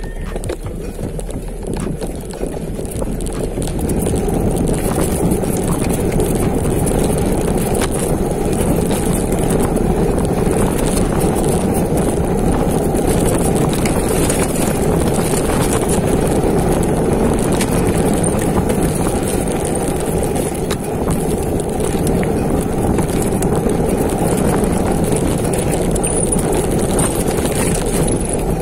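Mountain bike descending a dirt trail: steady rushing noise of tyres on the ground and wind past the rider, with the bike clattering over bumps in short clicks. It builds over the first few seconds, then holds steady.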